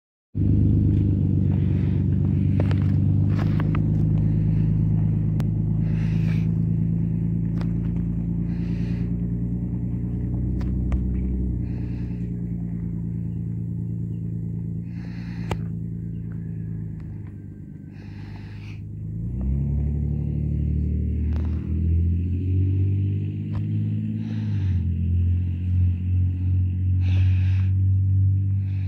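Nissan Frontier pickup's engine and exhaust rumbling as the truck pulls away. The rumble eases off past the middle, then grows loud again with the pitch rising and falling as the engine revs through the gears.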